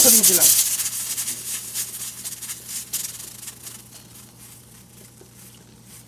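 Pressure cooker venting steam through its whistle weight: a loud, sputtering hiss that fades away over the first few seconds as the cooker is taken off the heat after its first whistle.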